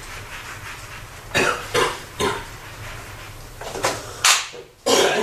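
A person coughing in a run of short, sharp coughs: three close together, then after a short pause three more.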